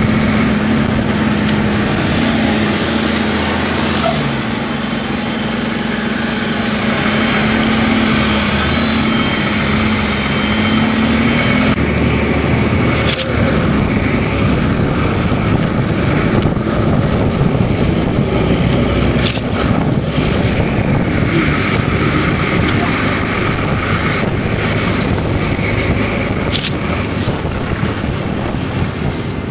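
Bus engine running with road and traffic noise, heard from aboard the moving bus; a steady engine hum is strongest in the first twelve seconds, with a few sharp clicks and knocks later on.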